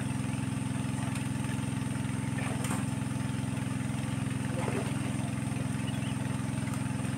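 An engine running steadily at idle-like speed, a constant low hum, with faint voices now and then.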